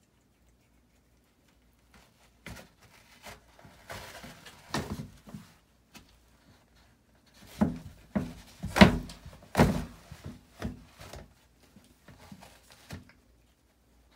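Irregular knocks and thuds of a toilet paper roll jolting on its wall-mounted holder as a Bengal cat claws and yanks at it, with paper rustling and tearing in between. The knocks start about two seconds in and are loudest in a quick cluster a little past the middle.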